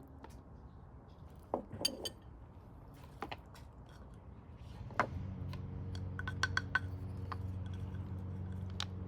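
Dishes and utensils clinking and tapping in scattered knocks, with a few quick clinks together about six and a half seconds in. A steady low hum starts about five seconds in and runs underneath.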